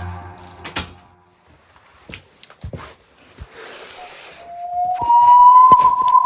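Househead creature sound effect: a low, many-toned drone fades out, a few scattered clicks and knocks follow, then a loud, steady, whistle-like high tone starts about five seconds in.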